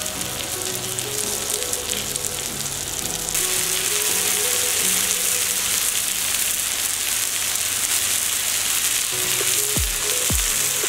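Butter sizzling and spitting steadily under pomfret fish frying on a hot tawa over high flame. The sizzle grows louder about a third of the way in.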